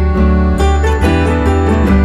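Background music: plucked acoustic guitar notes over a steady bass line, a new note every half second or so.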